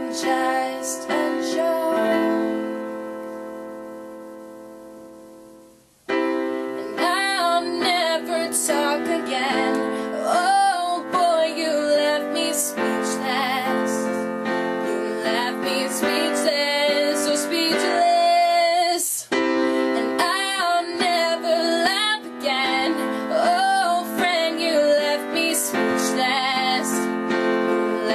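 A woman singing a slow ballad with vibrato over chords on a digital piano. About two seconds in, a held piano chord fades away for about four seconds, then voice and piano come back in suddenly.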